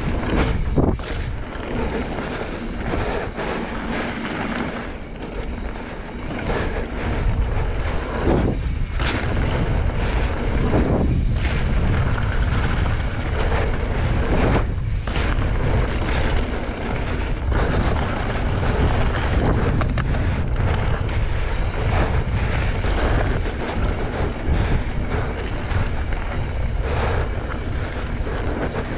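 Wind rushing over the microphone of a mountain bike descending a dirt trail, over the steady sound of tyres rolling on dirt, with the bike clattering over bumps now and then.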